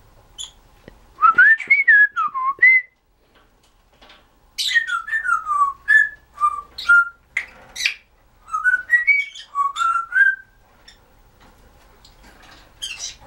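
Timneh African grey parrot whistling in three runs of gliding notes that swoop up and down, mixed with short sharp clicks and harsh notes, with brief pauses between runs.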